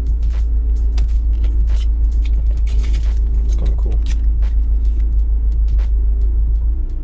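A steady deep rumble throughout, with a run of short clicks and crinkles from Pokémon card packs and cards being handled.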